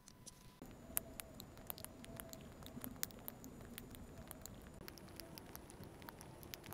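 A metal palette knife pressing and folding soft modelling clay, making many small, irregular sticky clicks and crackles, starting about half a second in.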